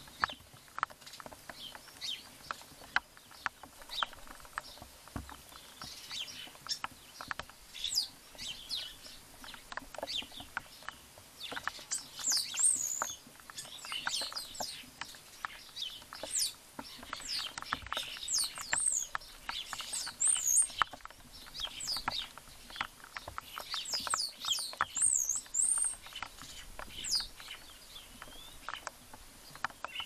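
Garden birds chirping and calling, a quick run of high, sliding chirps and whistles that is busiest through the middle, with many short ticks and clicks scattered through.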